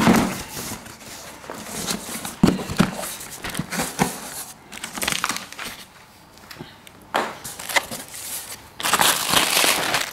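Cardboard box being opened and unpacked: scattered knocks and scrapes of the cardboard, with rustling of packing paper and plastic wrap. A dense burst of crinkling comes near the end.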